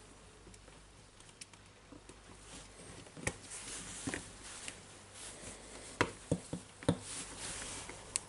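Small plastic clicks and knocks of wires and the trigger switch being pressed into an open plastic drill housing, with faint rustling of nitrile gloves. A few sharper clicks come close together near the end.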